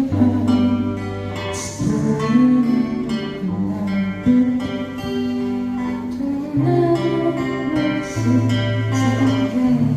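Live music: an acoustic guitar playing under a held, smoothly sliding melody line, with slow changes of bass note every second or two.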